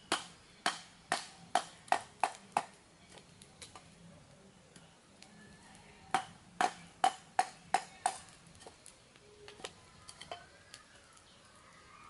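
A large knife chopping into a stick of bamboo: a run of seven sharp, slightly ringing knocks at two to three a second, a pause of a few seconds, then six more, with a few fainter taps near the end.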